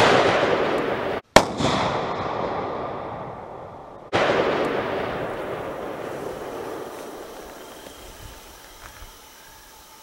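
Two rifle shots, about a second and a half in and about four seconds in, each followed by a long rolling echo that fades over several seconds; the tail of another shot is still dying away at the start. These are test shots while sighting in a scope.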